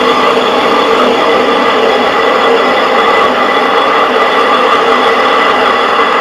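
Hand-turned stone quern (chakki) grinding lightly roasted broken rice into flour: a steady, unbroken grinding of the upper millstone turning on the lower one.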